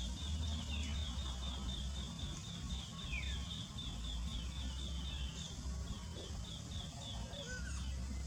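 Forest ambience: a high chirp repeating about three times a second, with a few short downward-sliding bird calls and a low rumble underneath.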